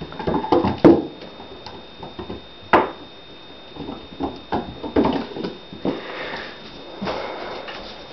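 Kitten's paws scrabbling and thudding on a hardwood floor as it chases and pounces on a toy dragged on a string: scattered sharp knocks and short scuffles, the loudest about a second in and just before three seconds.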